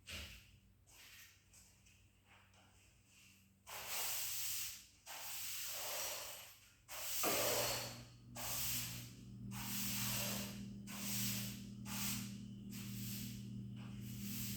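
Heavy, breathy in-and-out breaths close to the microphone, starting a few seconds in and repeating about once a second. A steady low hum comes in underneath about seven seconds in.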